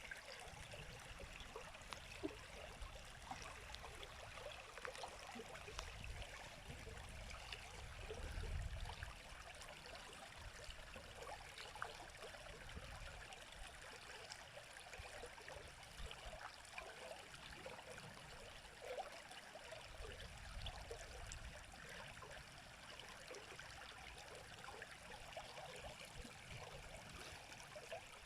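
River water running and trickling over stones, a steady babble with a low rumble that swells briefly twice.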